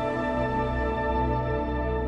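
Calm ambient background music of sustained, held chords, with no beat.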